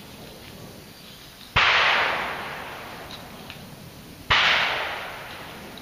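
Two shotgun shots about two and a half seconds apart, each followed by a long echo fading away.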